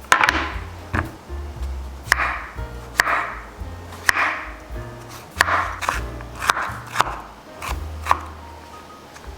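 Knife chopping potato on a cutting board: about ten sharp strokes at an uneven pace of roughly one a second, over background music.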